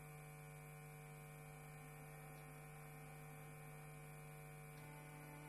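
Near silence with a steady electrical hum.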